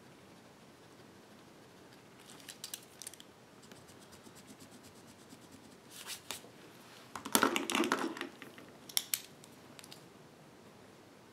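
Erasable gel pen writing on lined paper, short scratchy strokes, with pen handling clicks; a louder clatter of handling about seven to eight seconds in.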